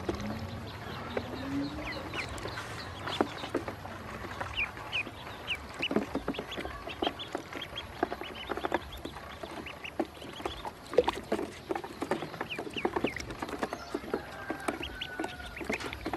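Ducklings peeping in short high chirps, over frequent small taps and clicks as they dabble at a plastic water dish.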